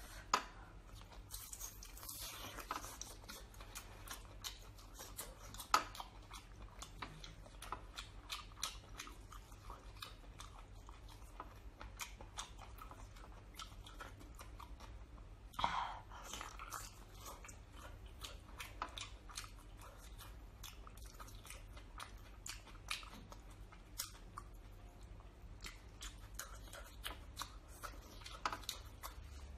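Faint eating sounds from cooked octopus: chewing, with many short wet clicks and smacks of mouth and fingers scattered throughout, and one louder smack about sixteen seconds in.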